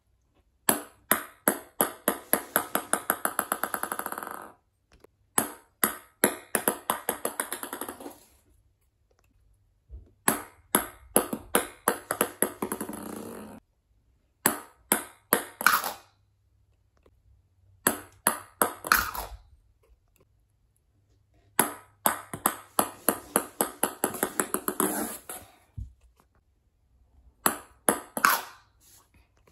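Ping pong balls bouncing on a hard wooden floor: about seven separate runs of bounces, each quickening and fading as the ball settles, a few ending in a fast rattle.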